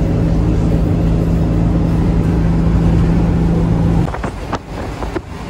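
VW Kombi's engine droning steadily at cruising speed, heard from inside the cab. The drone cuts off abruptly about four seconds in, leaving quieter road noise with a few clicks.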